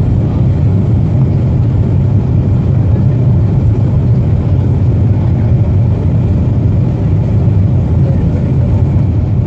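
Steady, loud rumble of a Boeing 737-400 in flight, its engines and airflow heard from inside the passenger cabin.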